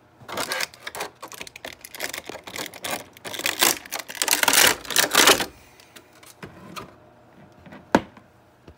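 Clear plastic blister tray crackling and clicking in rapid, irregular bursts as an action figure is pulled out of it, for about five seconds. A single sharp knock near the end.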